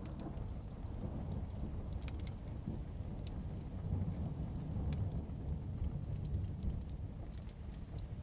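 Wood fire crackling with scattered sharp pops over a steady low rumble of heavy rain and distant thunder, the rumble swelling slightly about halfway through.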